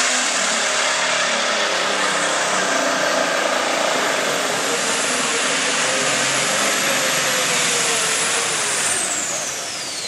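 Hot-farm-class pulling tractor's turbocharged diesel engine running flat out under load as it drags the sled. It is loud and steady, with a high turbo whine that falls away near the end as the engine comes off the throttle.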